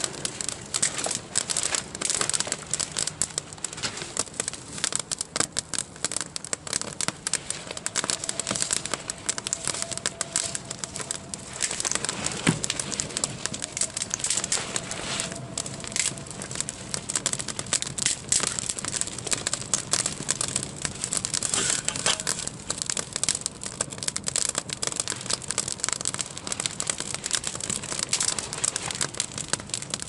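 Small campfire of twigs and thin sticks crackling steadily, with dense, irregular snaps and pops.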